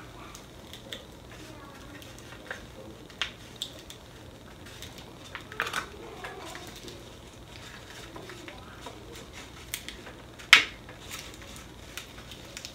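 Stencil vinyl and its paper backing being peeled and handled on a wooden board: light rustles and scattered taps, with one sharp click near the end.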